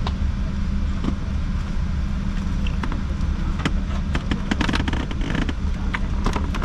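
Steady low rumble of machinery heard inside a Boeing 787-8's passenger cabin on the ground while the aircraft is being de-iced, with scattered light clicks and knocks.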